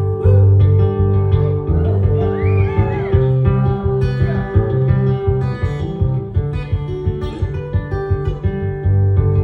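Live rock band playing an instrumental break: strummed guitars over a steady bass. A high melody line slides up and down in pitch about two to three seconds in.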